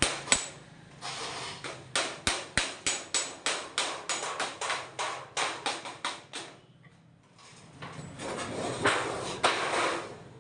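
Rapid hand-hammer blows, about four a second for several seconds, with a pause and then a stretch of rough noise and a couple more knocks near the end.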